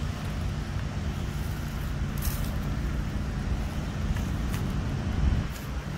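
Steady low rumble of motor traffic, with a few faint ticks.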